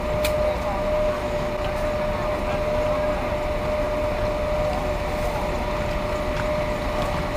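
A motor running steadily: a low drone with one constant whining tone that holds its pitch, and a single short click just after the start.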